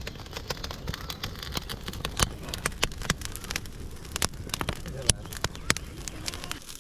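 Fire crackling, with many irregular sharp cracks and pops over a steady low rumble, as a pork head is singed in the flames to finish cleaning it.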